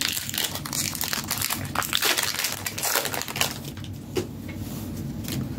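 Foil booster-pack wrapper crinkling as it is torn open and handled: a continuous rustle full of small crackles.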